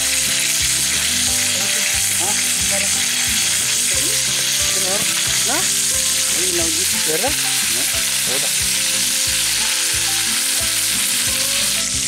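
Oil sizzling steadily in a frying pan over campfire embers as whole plucked Austral thrushes fry in it.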